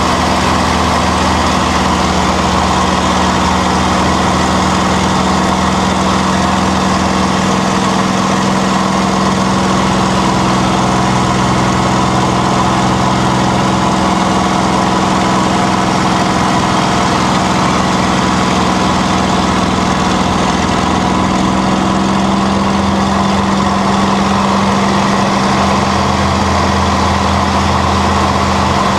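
P-51D Mustang's Packard Merlin V-12 engine running steadily in flight, a loud continuous drone. A low undertone fades out about a quarter of the way in and comes back near the end.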